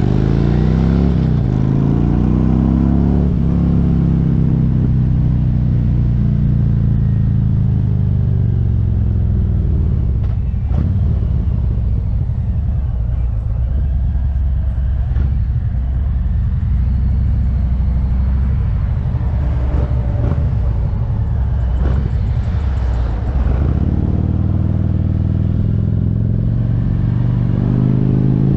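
Motorcycle engine running under way, with wind noise on the microphone. Its pitch climbs as it accelerates over the first few seconds, it settles into a steady low rumble while cruising, and it rises again in the last few seconds.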